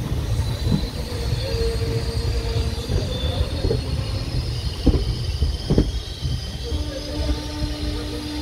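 Passenger train with ICF coaches moving through a station: a low rumble under a high wheel squeal, with two sharp knocks about a second apart around the middle. A steady low tone comes in near the end.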